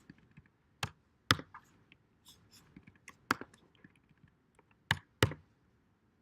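Computer keyboard keystrokes, irregular and sparse: a handful of sharp clicks with fainter taps between them.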